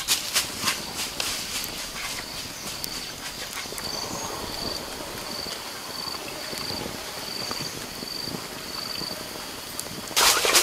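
Wood fire crackling under a clay griddle of grilling chicken wings, with a high insect chirp repeating about every two-thirds of a second. A sudden louder noise breaks in near the end.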